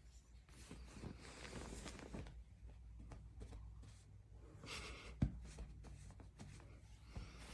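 Faint rustling of bed sheets and duvet as a pet wriggles and rolls on its back in the bedding, with a soft thump about five seconds in.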